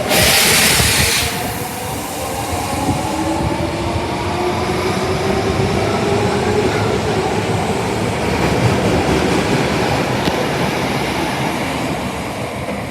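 Osaka Metro Tanimachi Line 22 series subway car running, starting with a short burst of hiss. Then its motor whine rises slowly in pitch over a steady rumble as the train gathers speed.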